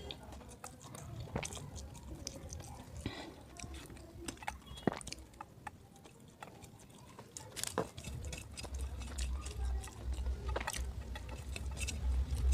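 Close-miked chewing of Maggi instant noodles: scattered wet mouth clicks and smacks, with a low rumble coming in during the last few seconds.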